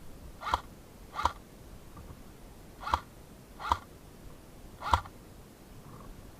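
Five short, sharp pops fired one at a time at uneven intervals, in pairs and singles, typical of an airsoft gun being shot in semi-auto.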